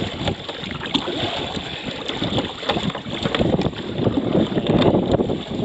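Wind buffeting the microphone, with water splashing and slapping against a kayak in choppy water.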